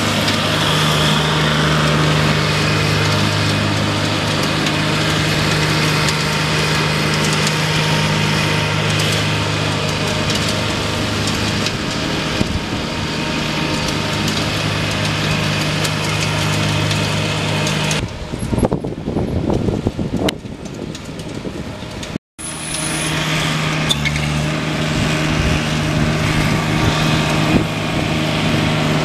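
Toro front-deck riding mower's engine running steadily while it cuts grass, going quieter for a few seconds past the middle, with a brief break shortly after before the same steady hum returns.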